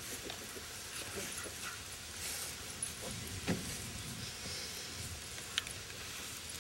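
A padded seat being handled and fitted onto a wooden horse-drawn buggy: faint knocks and rustling, with one dull thump about three and a half seconds in and a sharp click near the end.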